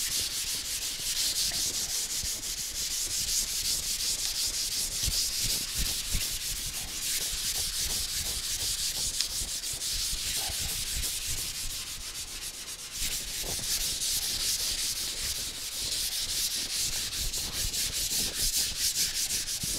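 220-grit sandpaper on a hand sanding block scraping over a primed car fender in quick back-and-forth strokes, block-sanding the primer down through a guide coat. The strokes pause briefly about two-thirds of the way through.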